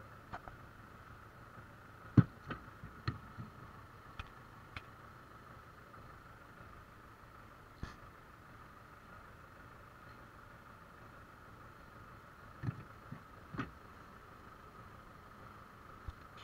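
Heavy wooden log rounds knocking and thudding as they are loaded into a wooden trailer: a few sharp knocks about two seconds in, the loudest of all, one near eight seconds, another cluster around thirteen seconds and one just before the end. Underneath, a steady engine hum of the tractor idling.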